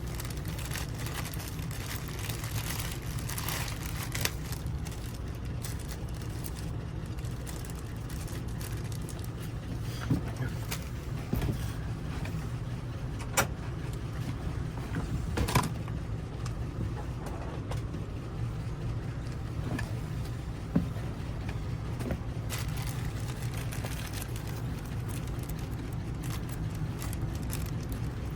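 Steady low hum of an idling vehicle engine, with a handful of sharp clicks and taps as keys and small parts are handled.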